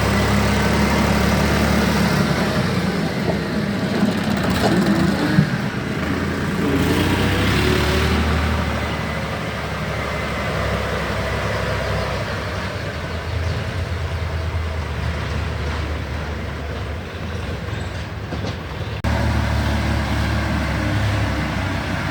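A motor running steadily with a low drone, with a few light knocks early and an abrupt change in the sound about three seconds before the end.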